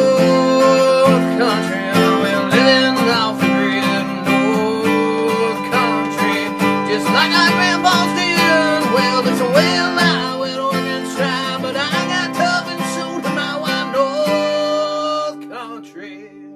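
Background music: plucked acoustic guitar with a bending lead line over held chords, fading out near the end.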